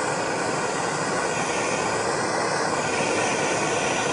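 Handheld MAPP gas blowtorch burning with a steady hiss.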